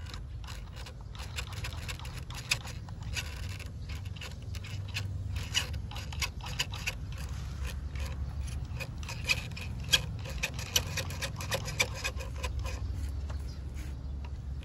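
Radio-controlled scale Land Rover Defender D90 truck crawling through wet mud: a steady low drone from its drivetrain under many sharp wet clicks and splats as the tyres churn the muck, the clicks coming thicker in the second half.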